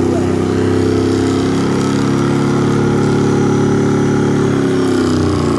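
Car engine held at high, steady revs during a tyre-smoking burnout. The revs start to drop near the end.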